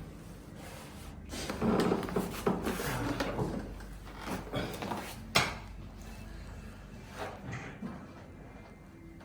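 Shuffling and handling sounds on a chiropractic treatment table, with a single sharp click or knock about five and a half seconds in.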